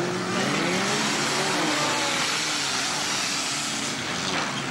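Engines of several stripped-out old cars racing on a dirt autocross track. One engine revs up and down in the first half-second, then there is a steady noisy rush of engines.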